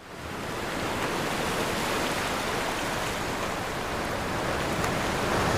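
Steady rushing noise, like rushing water or static, swelling in at the start and cutting off abruptly at the end.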